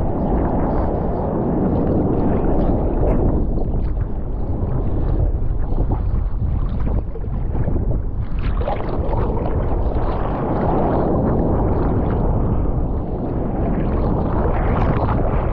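Ocean water sloshing and rushing against a GoPro, with wind buffeting its microphone; a steady churning noise that dips briefly about halfway through.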